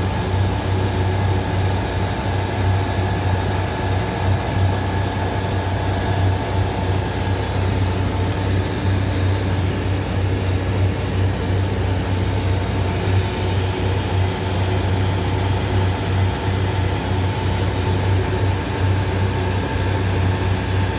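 Steady machine hum from a running electric motor, with a strong low drone and a few faint steady tones above it, unchanging throughout.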